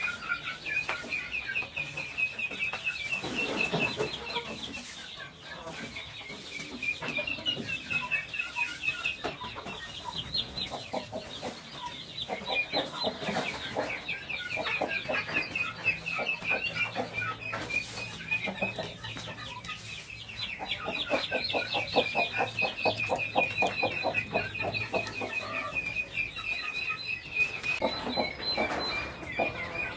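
Chickens clucking in bouts, over a continuous fast, high-pitched chirring.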